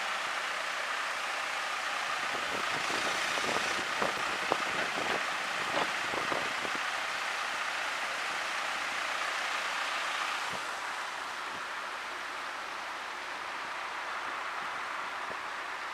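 Fast muddy floodwater rushing and gushing past a backhoe wheel: a steady hiss of running water with a few sharper splashes a few seconds in. The rush grows quieter about ten seconds in.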